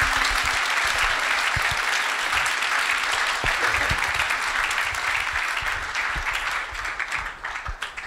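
Audience applause, a dense steady clapping that thins and dies away near the end.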